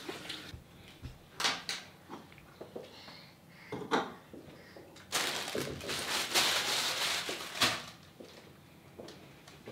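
A few light knocks and clatters of small objects on a plastic high-chair tray, then about two and a half seconds of rustling from about halfway through.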